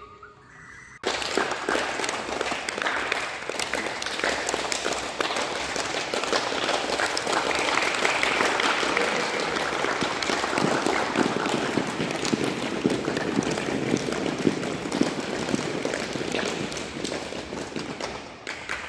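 Many people clapping their hands in a dense, continuous round of applause that starts suddenly about a second in and thins out near the end.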